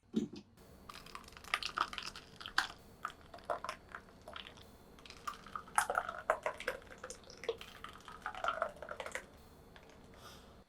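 Irregular clusters of light clicks, taps and clatters of things being handled in a kitchen, with a soft thud at the start.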